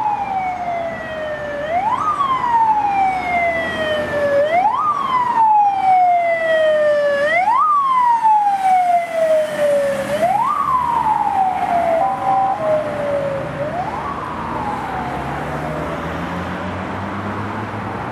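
Police Fiat Ducato van's siren on wail: each cycle sweeps up quickly and slides slowly back down, repeating about every two and a half to three seconds. It is broken by a short steady tone about twelve seconds in, then fades away, leaving low traffic rumble.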